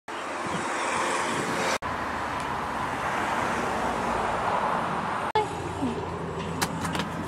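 Steady city street ambience with road traffic noise, cut abruptly twice, about two seconds in and about five seconds in, with a few faint clicks near the end.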